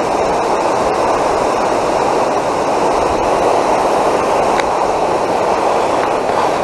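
Steady rush of water pouring over a low dam spillway, an even, unbroken noise.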